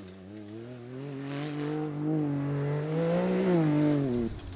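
Tuned Can-Am Maverick X3 DS side-by-side's turbocharged three-cylinder engine under hard throttle, its pitch climbing steadily as it gathers speed. The pitch falls sharply and the engine note drops away near the end.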